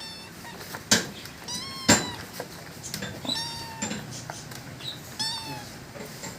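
A domestic cat meowing about three times, one call longer than the others. Two sharp knocks, about one and two seconds in, are the loudest sounds.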